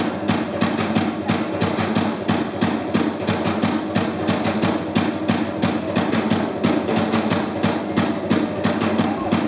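Fast percussion music: a rapid, steady drumbeat of about five to six strikes a second over a continuous musical backing.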